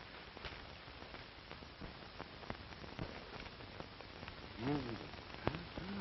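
Steady hiss and scattered clicks of an old film soundtrack, with a short murmured voice sound about three-quarters of the way through.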